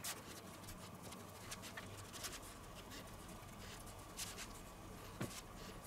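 Faint soft pats and light ticks of hands pressing out sticky pizza dough on a floured wooden board, scattered irregularly, with a few slightly louder taps.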